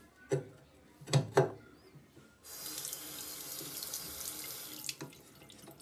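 A few sharp knocks from handling the single-lever basin mixer tap. Then water runs from the tap, newly fitted with a replacement valve cartridge, as a steady hiss for about two and a half seconds, and is cut off with a click.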